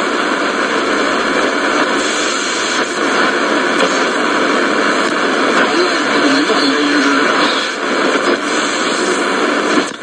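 Sony ICF-F12S portable radio's speaker hissing with loud, steady shortwave static while it is tuned between stations. A weak station's audio fades in faintly under the hiss about six seconds in.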